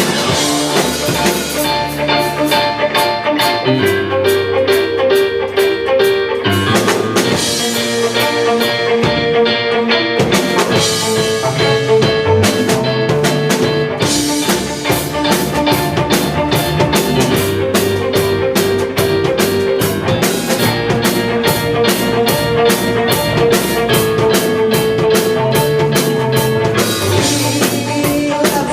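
Live rock band playing an instrumental passage: electric guitar and bass over a steady drum kit beat, with no vocals.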